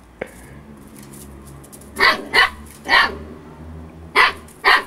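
Eight-week-old Siberian Husky puppy giving five short, high play barks in two quick pairs with a single one between.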